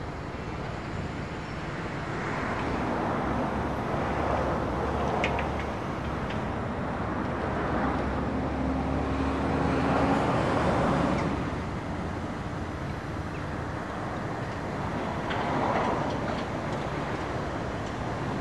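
Diesel engines of tracked excavators working on a building site, a steady rumble that swells and eases every few seconds. A brief steady whine sounds about eight to ten seconds in, with a few faint clicks around five seconds in.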